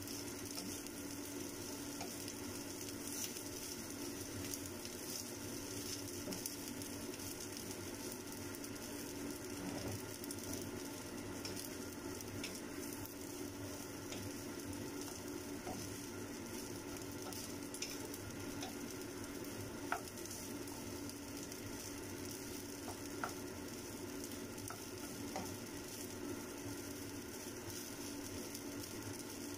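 Cooked white rice frying in a hot nonstick pan with a steady sizzle, stirred and turned with a wooden spatula that gives occasional light taps and scrapes. A steady low hum runs underneath.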